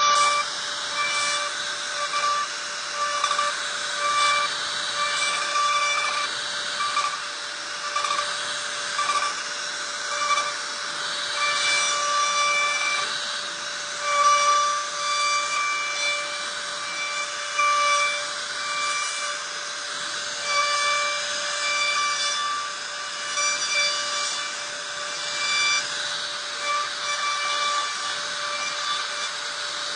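CNC machine cutting: a steady high-pitched whine over a rasping cutting noise that swells and eases every second or two.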